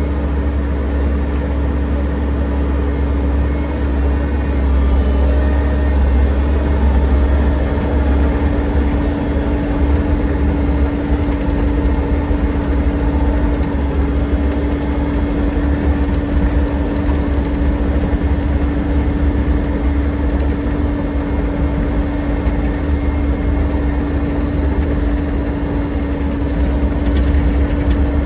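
Excavator engine running steadily, with a constant low rumble and a steady hum.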